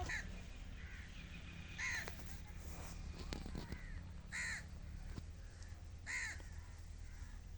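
A bird giving a short harsh call four times, about two seconds apart.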